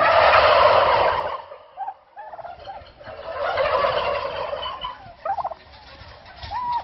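A flock of turkeys gobbling together in answer to a shouted call, in two loud bursts: one at the start lasting over a second, and another about three seconds in. A few scattered single calls follow near the end.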